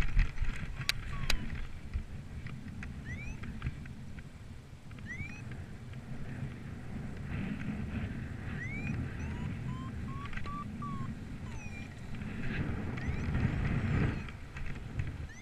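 Gusty wind buffeting the microphone, with a low rumble that swells in gusts around halfway through and again near the end. A few short rising chirps sound every couple of seconds, and there are two sharp clicks about a second in.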